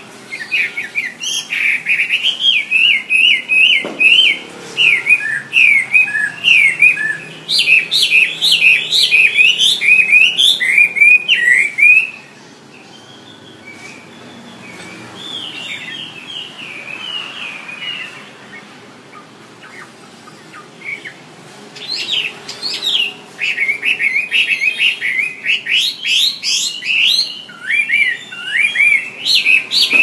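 Chinese hwamei singing: fast runs of loud, slurred whistled notes. About twelve seconds in the song drops to a quieter stretch of softer notes, and the loud runs resume about twenty-two seconds in.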